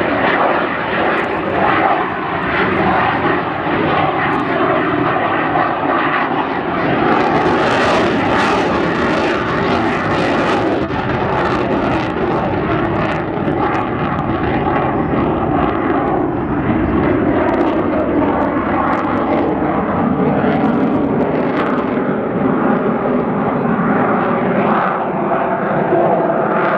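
Fighter jet flying a display: loud, continuous jet engine noise with a whine that slowly shifts in pitch.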